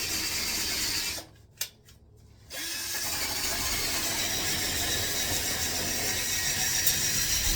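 A handheld power tool running with a rattly mechanical whirr while cleaning old gunk and rust off a toilet flange. It stops about a second in, a single click sounds in the pause, and it starts again about a second later and runs on.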